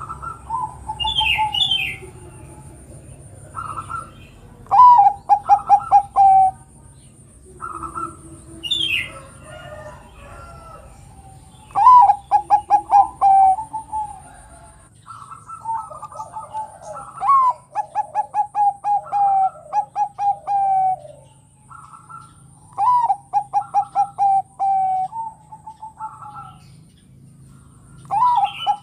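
Bangkok-type zebra dove (perkutut) cooing its song: phrases of quick, staccato notes ending in a longer rolling run, repeated over and over with short gaps.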